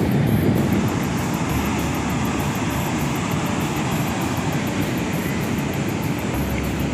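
Wind buffeting the microphone, a steady low fluttering rumble, with the sea surf behind it.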